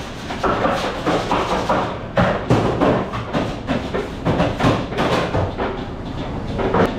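Restaurant kitchen clatter: irregular knocks and thuds of pans, utensils and doors over a steady background noise.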